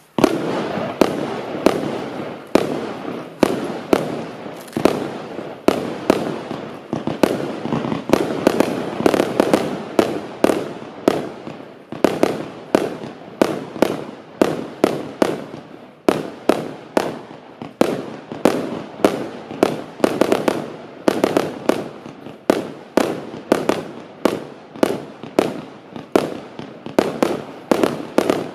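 A 100-shot, 20mm consumer firework cake (Celtic Fireworks 'China White') firing shot after shot in a steady, rapid sequence of about three a second. The sharp pops run over a continuous hiss.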